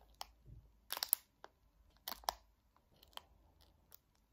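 Crinkly plastic snack-bar wrappers crackling and rustling in short bursts as packets are picked up, held up and set down on a pile of other wrapped bars. The loudest crackles come about one and two seconds in.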